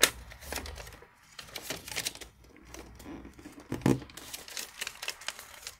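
A sheet of origami paper being handled and creased by hand: rustling and crinkling with short crisp crackles, the sharpest at the start and about four seconds in.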